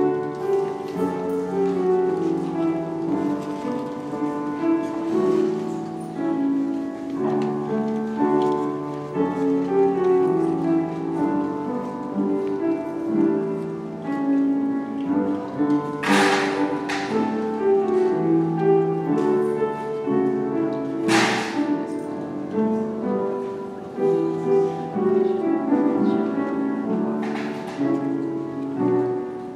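Slow instrumental offertory music on a piano-like keyboard, with sustained notes moving step by step. A few sharp knocks cut through it, the two loudest a little past the middle.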